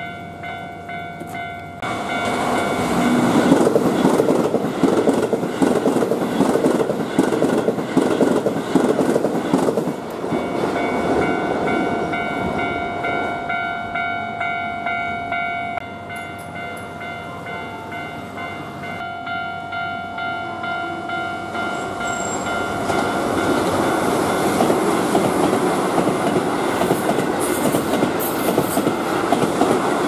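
Japanese railway level-crossing warning bell ringing steadily while Keihan Main Line electric trains pass, their wheels rumbling and clattering over the rails. The train noise swells about two seconds in, eases around the middle, and builds again near the end.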